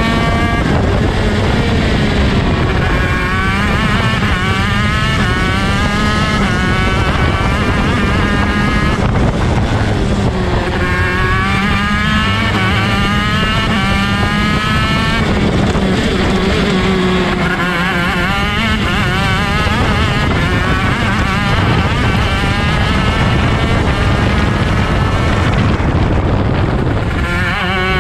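ROK Shifter kart's 125cc two-stroke engine at racing speed, heard from the driver's seat. The pitch climbs again and again as it is run up through the gears, and drops back sharply several times.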